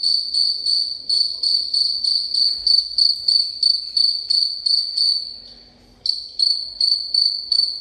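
High-pitched chirping sound effect played from a mobile phone: a thin, steady trill pulsing about two to three times a second. It breaks off for under a second near the end, then starts again.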